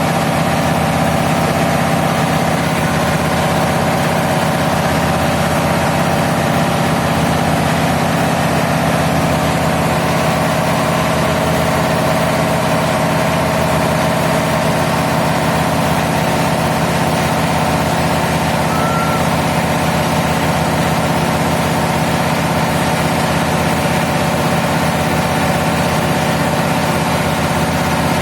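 Diesel engine running steadily at a constant speed, a loud, even engine-room drone.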